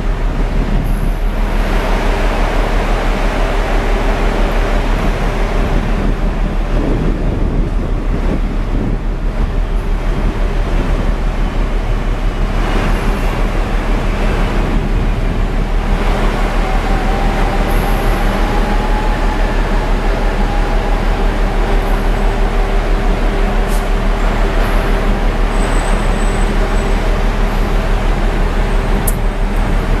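Steady machinery drone, a continuous low hum with several constant tones under an even rushing noise. A faint higher tone swells and fades in the middle, and there is a short sharp click near the end.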